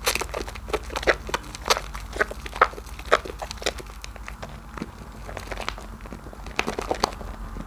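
Wet hands lathering a soap bar in thick soap foam: irregular squelches and crackles as the suds are squeezed between the fingers. The squelches come thickest in the first half and again just before the end.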